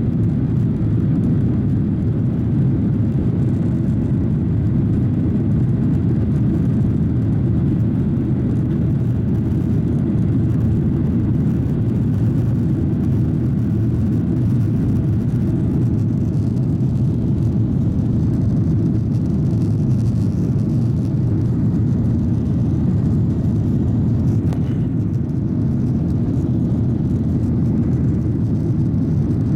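Jet airliner cabin noise: a steady low rumble of the engines and airflow, unchanging throughout.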